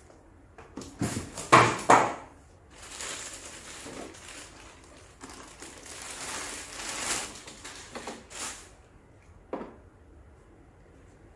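A clear plastic bag crinkling and rustling as it is pulled off a large model car, with a few loud crackles about a second and a half in and a short click near the end.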